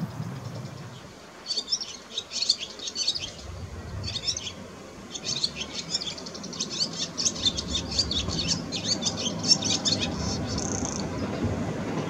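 Barn swallow singing a rapid twittering song in phrases: a short burst about one and a half seconds in, another around four seconds, then a long run from about five seconds that ends with a drawn-out note around eleven seconds.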